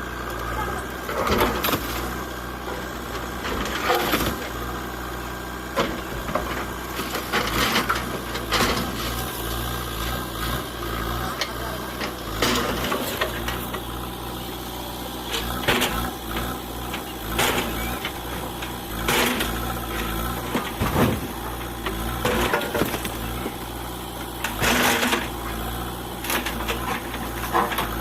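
JCB 3DX backhoe loader's diesel engine running steadily, with irregular sharp knocks and clanks every second or two as the machine works.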